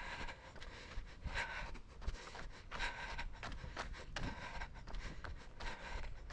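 A runner panting hard, with rhythmic footfalls on the paved lane as the pace picks up.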